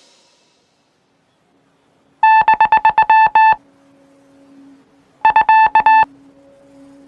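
Two quick runs of high electronic beeps, all on one pitch: about eight in the first run and six in the second, a couple of seconds apart. A faint low electronic hum runs beneath them.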